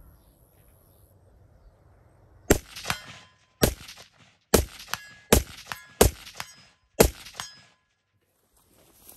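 Six rifle shots fired at a steady pace, roughly one a second. Each shot is followed about half a second later by the clang of the bullet striking a steel target 100 yards off, with a short metallic ring.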